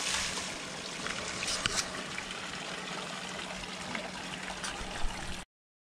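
Steady trickling, splashing water that cuts off abruptly about five and a half seconds in.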